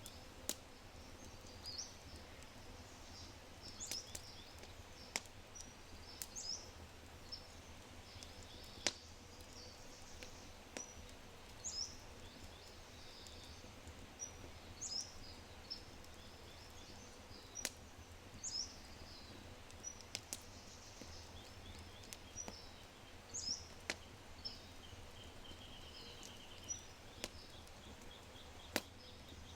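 A low oak fire crackling, with sharp pops every few seconds, while small songbirds sing high chirps. One bird repeats a short falling note every few seconds, and a trill comes near the end.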